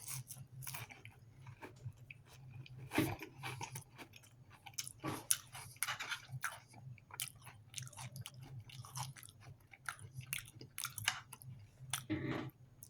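A person chewing a mouthful of cracker topped with jalapeno cheese spread and chicken stew, with irregular crunches as the cracker breaks up. A low steady hum runs underneath.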